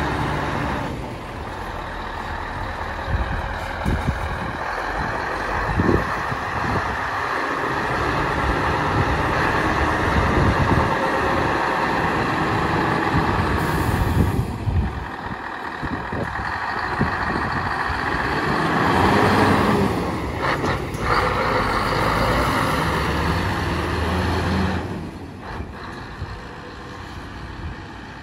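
Scania R500 tractor unit's V8 diesel engine running as the truck manoeuvres and drives off, with a brief high hiss about fourteen seconds in. The sound fades near the end as the truck moves away.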